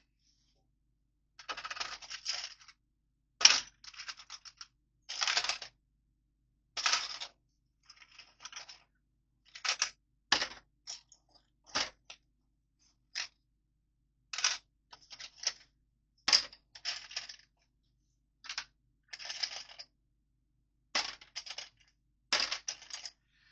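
Plastic Lego pieces clicking and clattering against each other and a hard surface as they are sorted by hand: a string of short, sharp rattles, roughly one a second, with silence between.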